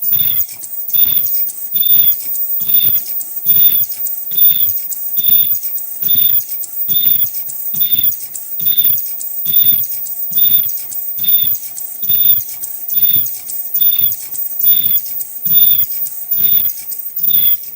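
High-speed 2D bird-beak mask-making machine running in a steady production cycle. A short high squeak comes with a low thump a little more than once a second, with a brief tone between strokes and a steady thin high whine underneath.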